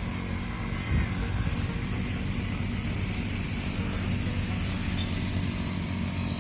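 Steady low engine rumble, like a motor vehicle running, with a short thump about a second in.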